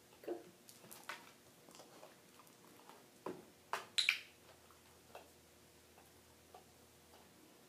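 Scattered light taps and knocks of a puppy's paws and nose against a small plastic tub, the loudest a few sharp knocks around three to four seconds in.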